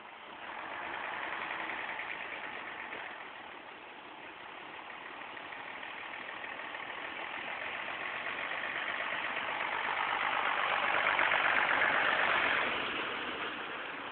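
Heavy-haul truck's diesel engine running under load as it tows a multi-axle trailer carrying a 150-ton transformer. The engine noise builds to its loudest a few seconds before the end, then drops back.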